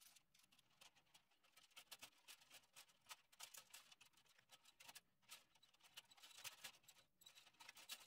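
Hand-held tubing cutter turned around the copper shell of a capillary-tube strainer, cutting it open: faint, quick, irregular ticks and scrapes from the cutting wheel on the copper.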